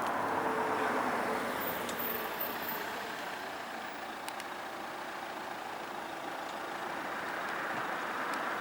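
Road traffic passing: steady engine and tyre noise from a vehicle, loudest about a second in, easing off, then rising again near the end.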